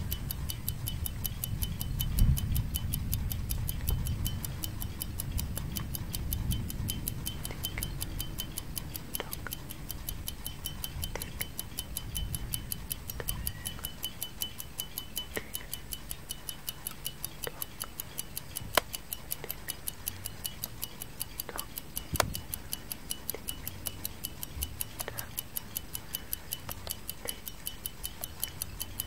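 Clock tick-tock sound effect: steady, evenly spaced ticking, about two a second, with a low rumble under the first few seconds that fades out and a few louder single clicks.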